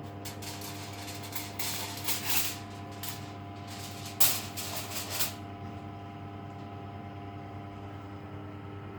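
A steady electrical hum from a running kitchen appliance, with several short hissing or rustling noises during the first five seconds, the loudest about four seconds in.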